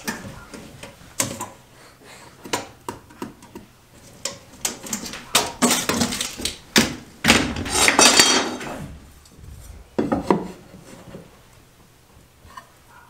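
Light clicks, knocks and rattles of hand tools and materials being handled, with a busier stretch of scraping and clatter about six to eight seconds in.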